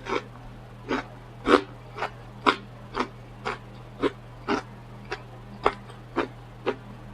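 Close-miked open-mouthed chewing: wet mouth smacking in a steady rhythm of about two smacks a second.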